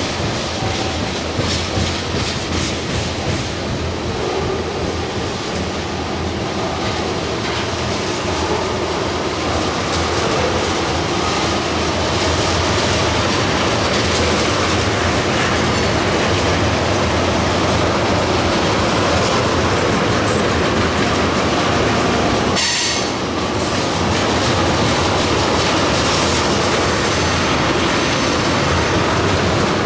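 Loaded ethanol tank cars of a freight train rolling past close by: a steady, loud rumble and clatter of steel wheels on the rails.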